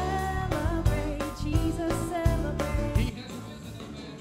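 Live recording of a church worship band: a singer over a steady drum beat and bass. About three seconds in, the drums and bass drop out, leaving held chords under the voice.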